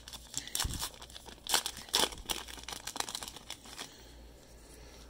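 Topps Heritage baseball card pack wrapper torn open and crinkled by hand: a dense run of sharp crackles that stops about four seconds in.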